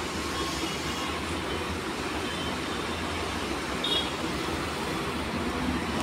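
Steady low rumble and hiss of background noise, with one faint, short, high chirp about four seconds in.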